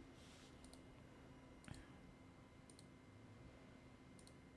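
Near silence with faint computer mouse clicks, each a quick double tick, heard four times about a second or so apart over a faint steady hum.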